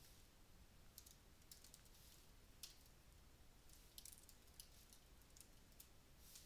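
Faint computer keyboard typing: scattered, unevenly spaced keystrokes as a line of code is typed.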